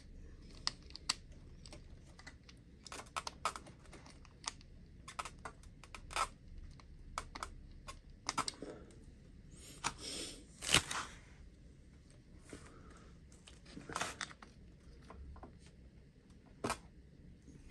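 Small plastic clicks and rubbing as a wheel with its rubber tyre is handled and fitted onto the hub of an HPI WR8 Flux RC rally car. The clicks come irregularly, with a few louder scrapes in the second half and one sharp click near the end.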